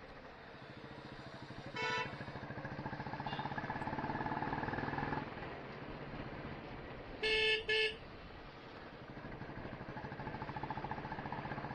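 Royal Enfield Bullet's single-cylinder engine running under way, swelling and easing with the throttle. A vehicle horn honks once about two seconds in and twice in quick succession about seven seconds in, louder than the engine.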